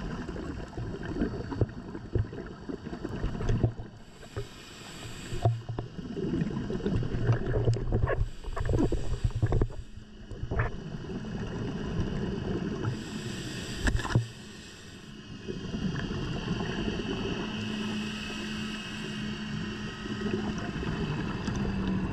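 Underwater sound of a scuba diver breathing through a regulator: bubbling, rumbling exhalations alternate with quieter hissing inhalations, several breaths in turn. A few sharp clicks, the loudest about two-thirds of the way through, and a steady low hum from about halfway.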